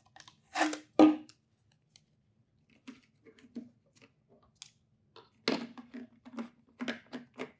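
A sticky label rubbed down onto a spray bottle, two short scratchy rasps about half a second and a second in. From about five and a half seconds there is a run of light knocks and clicks as spray bottles are handled and set on the table.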